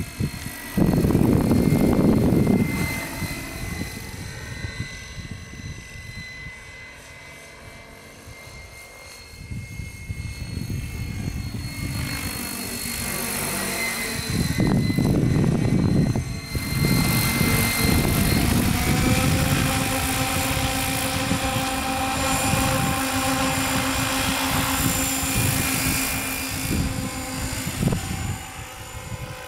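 Radio-controlled scale Bell 222 helicopter on Hirobo Sceadu mechanics flying past at high rotor speed: a high whine with rotor chop that rises and falls in pitch and loudness as it passes. Gusts of wind rumble on the microphone twice.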